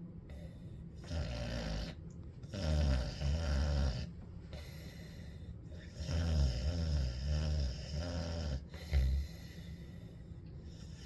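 Pet dog snoring: a run of low snores of uneven length, the loudest in the middle of the stretch, with quieter breathing between them.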